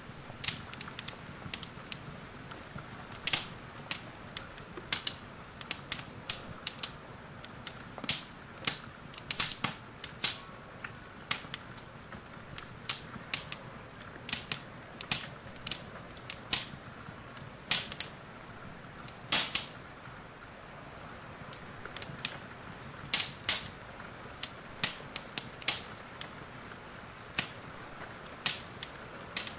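Wood fire crackling in a fireplace, with irregular sharp pops a few times a second over a steady soft hiss of rain.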